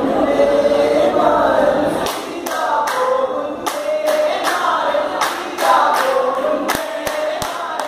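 A group of young men performing Vattappattu, the Mappila song-and-clap art form: singing together, and from about two seconds in clapping their hands in rhythm, roughly two to three claps a second.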